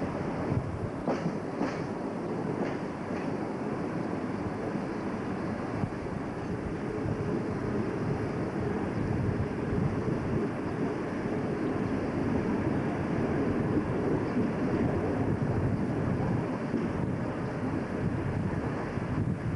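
PKP SP32 diesel locomotive running along the line, with a steady rumble of engine and wheels on rail heard from the cab's side window, and a few clicks over rail joints about a second in.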